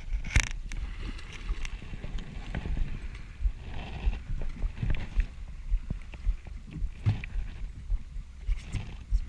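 Water slapping against the metal hull of a drift boat, a run of irregular low knocks over a steady wash of water and wind, with one sharp click about half a second in.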